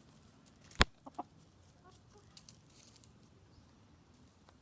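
Chickens clucking softly, with a single sharp click about a second in that is the loudest sound.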